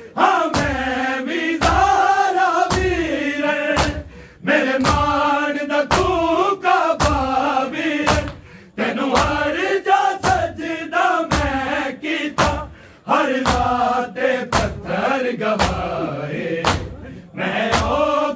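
Men chanting a Punjabi noha (Shia mourning lament) as a group, with matam chest-beating strikes about twice a second keeping the beat under the singing. The singing breaks off briefly a few times while the strikes keep going.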